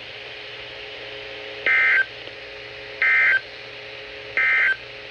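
Three short bursts of Emergency Alert System (SAME) digital data tones from NOAA Weather Radio station WXM49. Each burst is about a third of a second long and they come about a second apart, over a faint steady hum. This is the end-of-message code sent after a broadcast warning.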